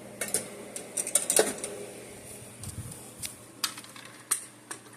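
Fire alarm pull station being handled: a series of light, irregularly spaced clicks and taps.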